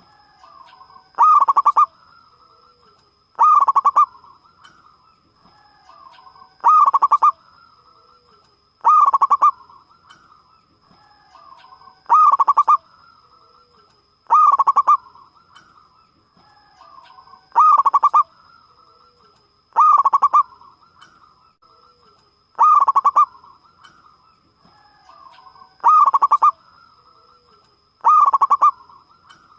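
Zebra dove (perkutut) cooing: a loud, rapidly pulsed coo of under a second, repeated about every two and a half to three seconds, eleven times in all.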